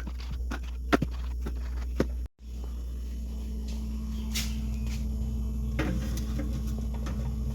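Household handling sounds: short knocks and clicks of things being picked up and set down, as when putting groceries away in cupboards and a fridge, over a steady low hum; the knocks stop about two seconds in and only a few scattered clicks follow.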